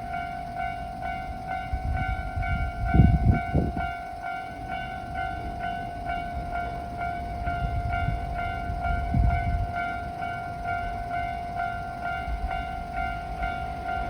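Japanese railway level crossing warning bell ringing, a repeated electronic clang at about two strikes a second, signalling an approaching train. Low rumbles come and go beneath it, the loudest about three seconds in.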